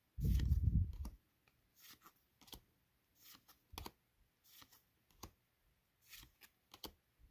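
Pokémon trading cards being slid one by one from the front to the back of a hand-held stack, giving short soft clicks and rustles every half second or so. A dull low bump, about a second long, comes at the very start and is the loudest sound.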